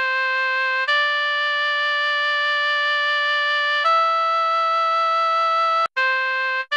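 Oboe playing long, steady held notes rich in overtones. It steps up twice, then after a brief break returns to the first, lowest note.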